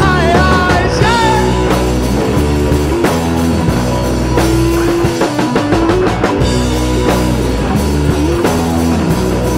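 Rock music soundtrack with drums and guitar.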